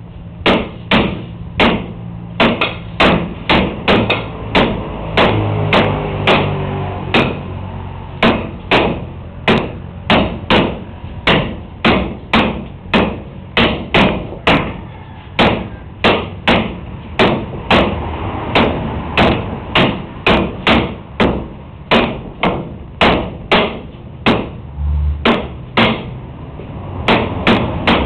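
Nunchaku repeatedly striking a hard cantilevered wooden stick, sharp knocks at about two a second with little pause.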